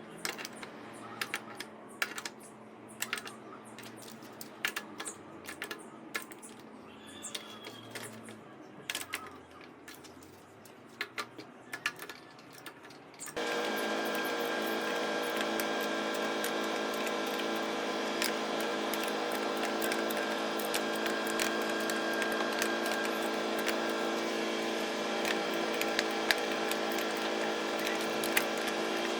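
Scattered light clicks and taps of tools and parts being handled, then about halfway through a small power tool starts abruptly and runs steadily with a constant hum.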